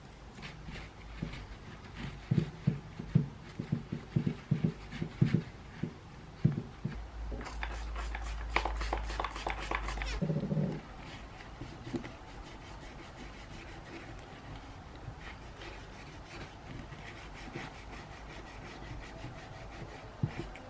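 Hands knocking and handling small metal typewriter parts, then about three seconds of quick, even rubbing strokes as a greasy part is scrubbed clean, followed by faint scattered ticks.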